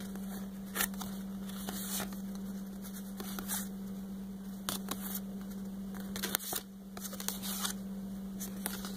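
Stiff cardboard pattern cards being handled and shuffled, with scattered light rustles and taps, over a steady low electrical hum.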